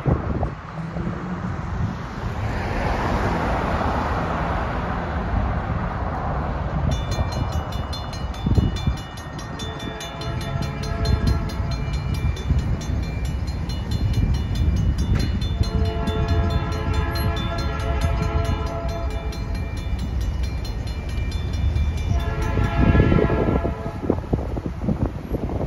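A Safetran mechanical crossing bell starts ringing about seven seconds in with rapid, even strokes as the crossing activates. From about ten seconds the approaching Norfolk Southern locomotive sounds its horn in several long blasts over the bell. A car passes on the road before the bell starts.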